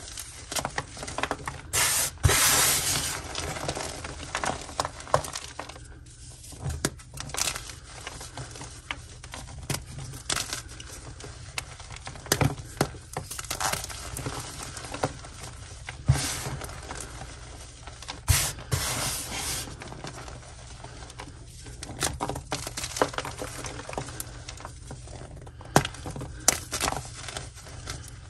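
Blocks of gym chalk crushed and crumbled between the hands: crunching and crackling with many sharp snaps as chunks break. There are a few longer, powdery crumbles, one about two seconds in and another about two-thirds of the way through.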